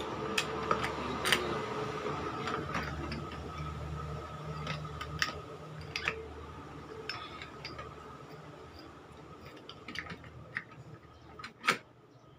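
Irregular light metallic clicks and clinks as the clutch parts of a motorcycle engine (hub, plates and springs) are handled and fitted by hand, with a sharper click near the end. A steady low hum runs underneath.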